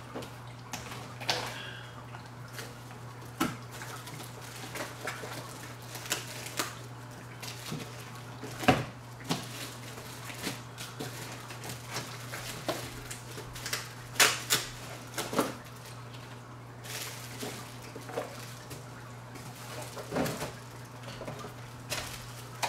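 Unboxing by hand: plastic wrapping crinkling and rustling, with scattered sharp clicks and knocks as parts are taken out of a cardboard box. A steady low hum runs underneath.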